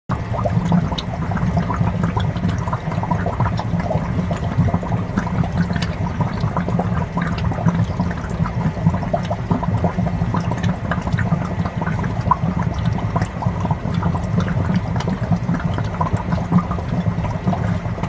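Moving water bubbling and gurgling steadily, with many small crackles and a faint steady high tone underneath.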